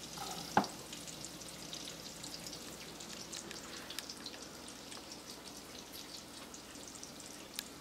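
Portobello mushrooms sizzling in a skillet of steak pan juices: a steady crackling hiss, with one sharp knock about half a second in.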